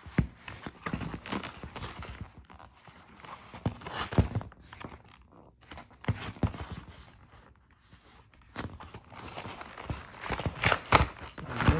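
Cardboard retail packaging being handled: irregular taps, knocks and paper rustles as the backing card is turned over and its tabs are peeled, with a quiet stretch about two-thirds through and louder rustling and scraping near the end.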